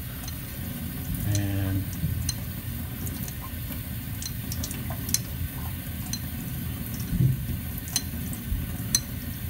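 Tap water running steadily onto a wet honing stone held over a stainless steel sink, with a small object being rubbed across the stone's face under the stream. A few light clicks come through.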